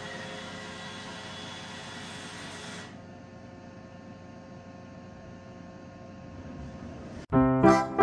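iRobot Roomba i4 robot vacuum running, a steady whirring hum with a few steady tones that turns quieter and duller about three seconds in. Piano-like keyboard music starts abruptly near the end.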